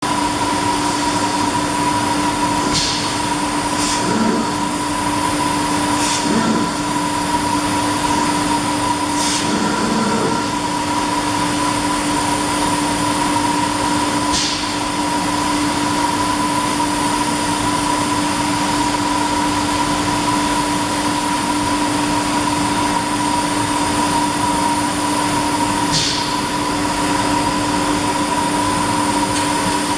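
Bystronic Bysprint 3015 CNC laser cutting machine running: a steady loud mechanical hum with two steady tones, broken now and then by short sharp hisses.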